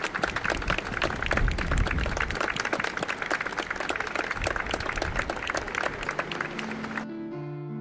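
A small crowd of people clapping and applauding, with wind rumbling on the microphone. About seven seconds in, the applause cuts off suddenly and piano music takes over.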